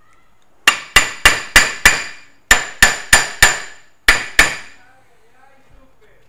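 Steel-headed hammer striking metal: a new rear wheel bearing is being tapped fully home in a 1969 VW bus trailing arm. There are eleven ringing blows, in runs of five, four and two, about three a second.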